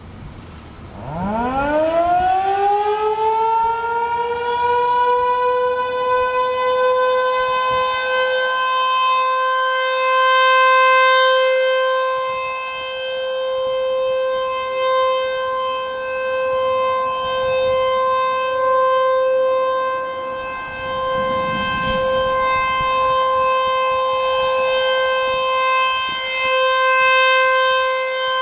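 Fulton (ASC) T-128 rotating civil defense siren starting up: it winds up quickly in pitch to a steady tone of about 519 Hz within about three seconds, then holds the steady alert signal. Its loudness swells and fades slowly, roughly every fifteen seconds, as the rotating horn sweeps around.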